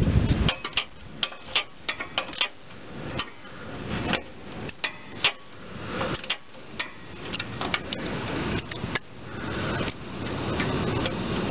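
Ratchet wrench clicking in short irregular runs of sharp ticks while the new brake/clutch pedal safety switch is tightened, after a brief low rumble at the very start.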